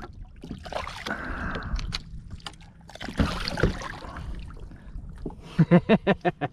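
Water splashing as a hooked grouper thrashes at the surface beside a kayak, in two noisy bursts during the first part.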